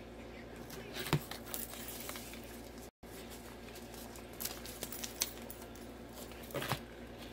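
Planner stickers being peeled from their sheet and pressed onto paper pages with long fingernails: a few scattered light clicks and paper rustles over a faint steady hum, with a brief cut to silence about three seconds in.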